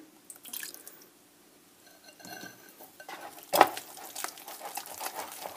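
Metal wire whisk beating wet oat and chia pancake batter in a ceramic bowl, the wires scraping and clinking against the bowl. It starts about halfway through, with one sharper knock soon after.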